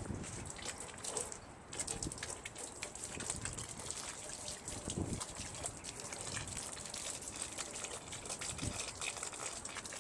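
Water trickling and splashing in an irregular patter, with scattered drips and small clicks.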